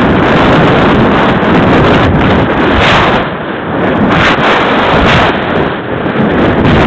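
Loud wind buffeting the microphone of a model rocket's on-board camera as the rocket descends under its parachute, swelling and easing irregularly every second or two.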